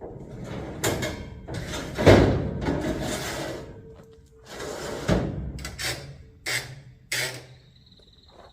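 A run of knocks and thuds, each brief and noisy, the loudest about two seconds in and a cluster of shorter ones near the end.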